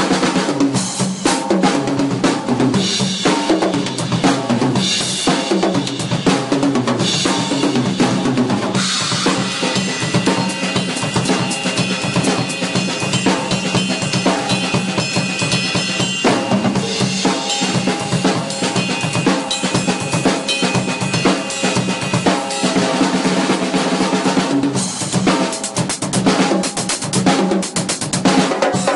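A Gretsch drum kit played continuously in a busy groove, with bass drum, snare, toms and cymbals. The cymbals ring heavier for stretches in the middle and near the end.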